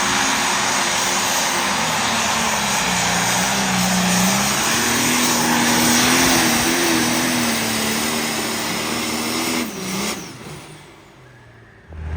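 Competition truck or tractor pulling engine running hard under load, a loud roar with its pitch wavering up and down. The roar drops away abruptly near the end.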